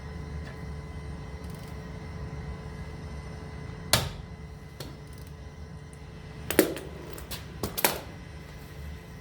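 A handful of sharp metallic clicks and knocks from tools being handled during wheel removal: one about four seconds in and a quick cluster near the end. A steady low hum runs underneath.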